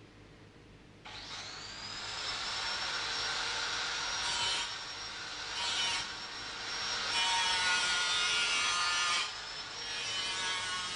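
Off-screen power tool: its motor starts about a second in with a rising whine, then runs with a rasping, scraping noise that grows and fades several times, as if the tool is working material. It drops briefly about nine seconds in and then starts again.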